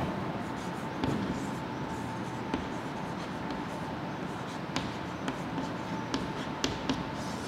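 Chalk writing on a chalkboard: the scratch of chalk strokes, with several sharp taps as letters are written.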